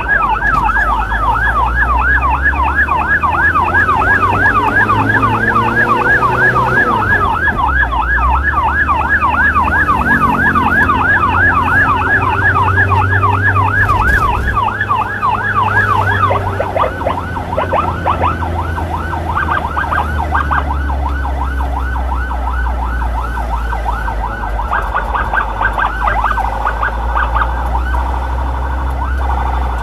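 Electronic emergency siren in a fast yelp, about four sweeps a second, switching after about sixteen seconds to a slower, steadier wail. Underneath, a motorbike engine rises in pitch and drops back a few times as the scooter threads through traffic.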